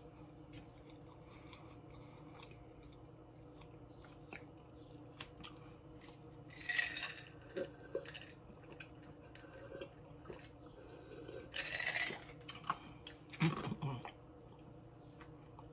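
A person eating baby back ribs close to the microphone: chewing with many small wet clicks, and a few louder mouth noises about 7, 12 and 13 seconds in.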